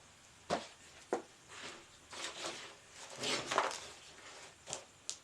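Packaging being handled as a small handheld drill is unboxed: a few sharp clicks and taps, with rustling about two seconds in and again around three and a half seconds.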